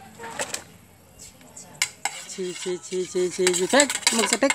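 Metal spoon scraping and clicking against a plate. About halfway in, a quick run of short pitched vocal sounds starts, then rising and falling vocal sounds, louder than the spoon.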